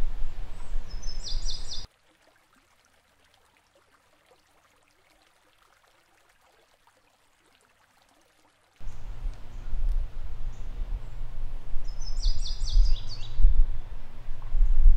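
Outdoor ambience: a heavy low rumble of wind on the microphone, with a bird chirping in short bursts twice, about a second in and again near the end. The sound cuts out to near silence from about two seconds in until about nine seconds in.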